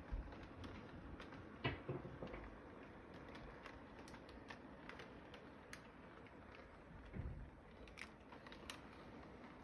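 Toy electric train rolling around a tabletop track: faint, irregular clicking and rattling of its wheels and cars on the rails, with a sharper knock a little under two seconds in.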